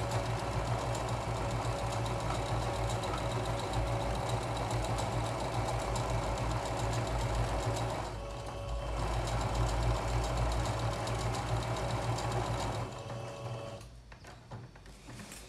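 Electric sewing machine running steadily as it stitches an appliqué edge around curves. It slows briefly about halfway through, picks up again, and stops a couple of seconds before the end.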